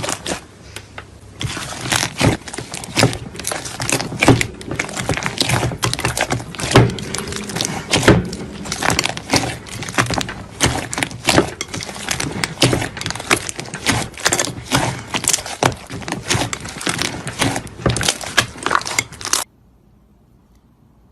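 Slime being squeezed and worked by hand, giving a dense run of sharp clicks, pops and crackles as air pockets burst. It cuts off suddenly near the end.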